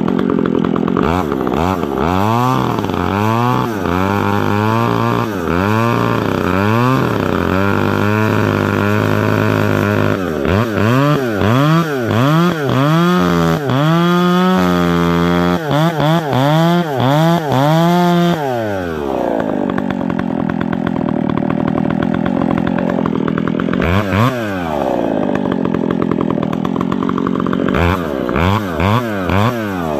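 Chainsaw with a square-file hand-sharpened chain, the saw's bar working back and forth in a tree's face cut to shave the notch clean. The engine pitch rises and falls again and again, fastest in the middle stretch. It then eases to a lower, steadier note, with a few more short revs near the end.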